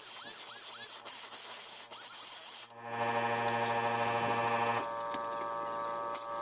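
Air-powered cut-off wheel grinding through the sheet-metal catalytic-converter shield under the car, its high hissing whine dipping and rising repeatedly as the wheel bites. About three seconds in the grinding stops abruptly and a steady mechanical hum takes over.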